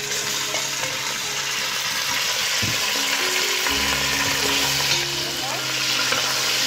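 Raw lamb chunks sizzling in hot oil in a steel pot as they are tipped in and moved about: a steady frying hiss.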